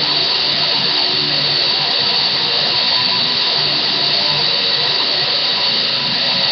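Electric guitar played through heavy distortion, a metal riff of changing notes under a loud, steady hiss, recorded on a webcam microphone.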